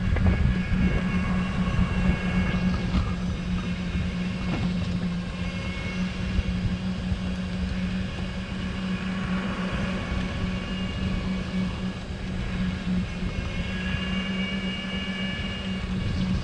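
Golf cart driving along a paved road: a steady, even hum from the cart, with low uneven wind rumble on the microphone.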